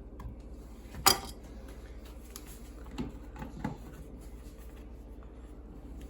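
Small handling sounds over a low steady hum: a sharp click about a second in, two lighter taps a couple of seconds later, and faint rubbing, as a plastic switch plate is worked on by hand.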